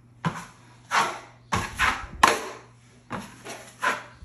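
A wide steel drywall knife spreading and scraping setting-type joint compound (hot mud) across a drywall wall in repeated strokes, about one every half second. It is laying on a thick first coat over the damaged patch.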